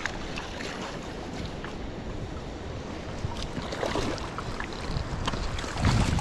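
Steady rush of creek water with wind buffeting the microphone, and a hooked steelhead splashing at the surface about four seconds in as it is played toward the net. A low thud near the end.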